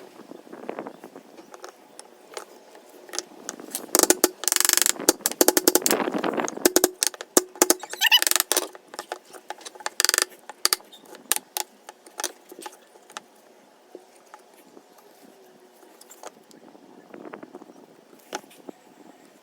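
Irregular clattering and sharp clicks with short scraping bursts, the busiest about four to seven seconds in, thinning to scattered clicks later.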